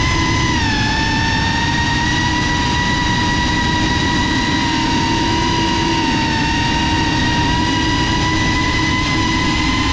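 Multirotor drone's motors and propellers whining loudly, as heard from its onboard camera. The pitch dips slightly about half a second in, then holds steady as the drone hovers and turns.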